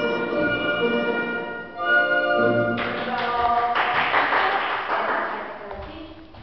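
Classical orchestral music. A rush of noise rises over it about halfway through, and it fades out near the end.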